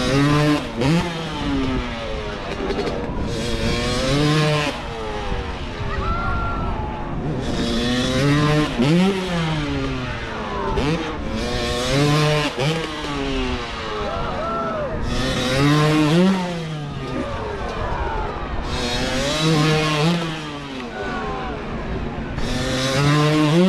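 Dirt bike engines revving hard in repeated throttle blips, the pitch sweeping sharply up and down about every three to four seconds, as freestyle motocross bikes are ridden up the jump ramp.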